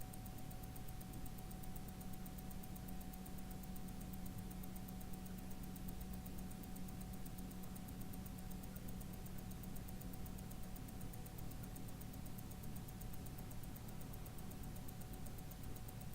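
Rolex calibre 3135 automatic watch movement ticking, heard very close up: a rapid, even beat of eight ticks a second (28,800 beats per hour), over a faint steady hum.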